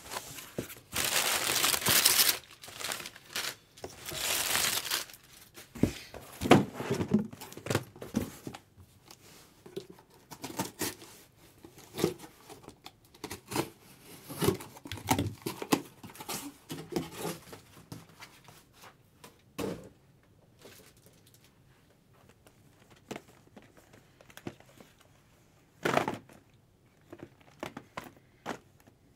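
Wrapping being crinkled and torn in two loud spells of rustling near the start, followed by scattered light clicks and taps of hands handling things, with one sharper knock near the end.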